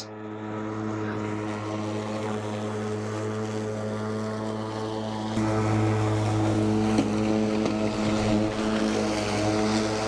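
Battery-electric Mowrator S1 remote-control lawn mower running: a steady pitched electric hum that grows louder and deeper about five seconds in.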